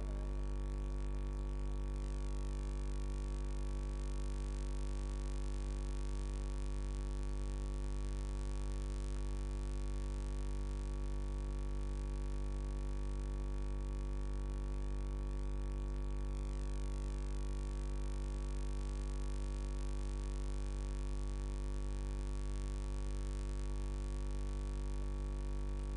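Steady low electrical hum with a buzz of many even overtones, unchanging throughout; no speech.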